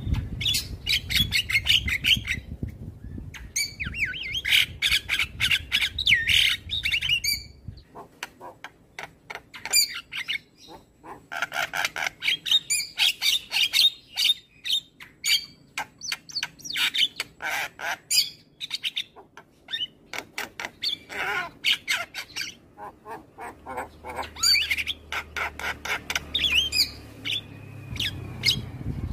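Javan myna (jalak kebo) singing a fast, chattering song of harsh squawks, clicking notes and short whistles, in rapid runs broken by brief pauses. A low rumble lies under the first several seconds.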